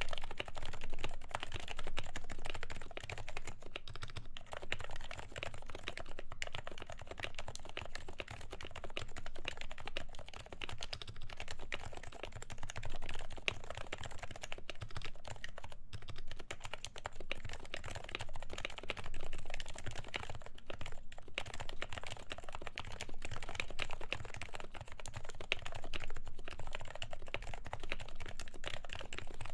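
Continuous fast typing on an HHKB Professional with 45g Topre electro-capacitive switches, lubed and fitted with silencing rings: a dense, even run of soft, muted keystrokes.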